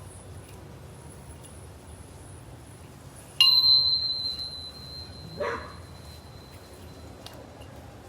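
A sudden sharp metallic strike about three seconds in, leaving one clear high ringing tone that fades out over about four seconds. A short rising-and-falling squeak follows about two seconds after the strike.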